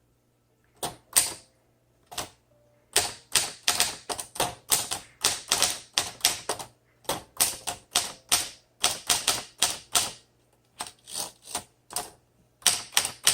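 1954 Smith Corona Skyriter manual travel typewriter being typed on: sharp typebar strikes against the platen at about three to four a second, in runs broken by short pauses.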